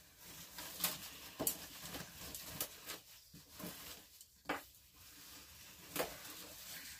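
Hands working potting soil into plastic seed-starting trays: soft rustling broken by scattered light taps and crinkles.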